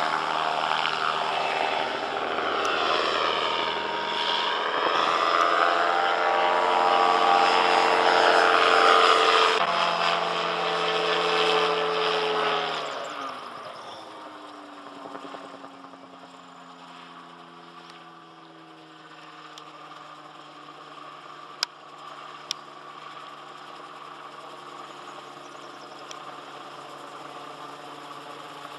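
Sportcopter Lightning gyrocopter flying by, its engine and pusher propeller loud at first with the pitch sweeping as it passes. About 13 seconds in the engine note falls steeply, and it carries on much quieter and lower, with two short sharp clicks a second apart later on.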